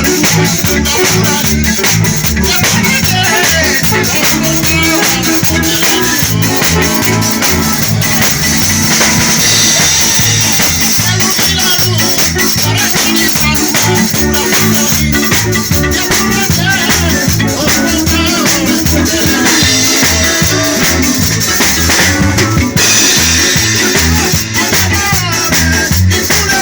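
Live band music with drums playing a steady, repeating beat over a bass line.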